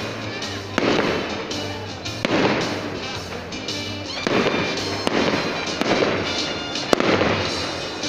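Aerial fireworks bursting overhead in a display, about five sharp bangs in eight seconds, each one trailing off, with music playing underneath.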